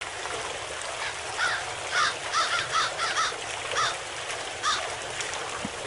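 A bird calling repeatedly: about nine short calls in irregular groups, each rising and then falling in pitch, over a steady background hiss.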